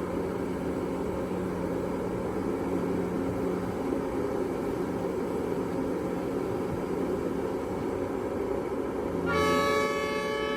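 Heavy machinery engine running steadily with a low hum. About nine seconds in, a vehicle horn blasts loudly for about a second and a half.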